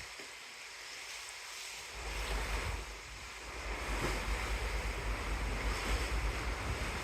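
Rushing sea water with wind buffeting the microphone; the wind rumble gets stronger about two seconds in.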